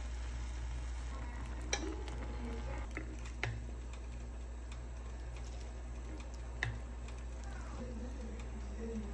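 Metal fork and spoon stirring noodle soup in a glass bowl, with a few sharp clinks of metal on glass spread through. A steady low hum runs underneath.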